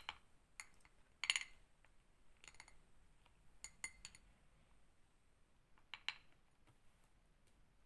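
Metal spoon clinking against the side of a container while stirring a honey mixture: a few scattered faint clinks, the loudest a quick cluster about a second in, then a few more every second or two, with quiet stretches between.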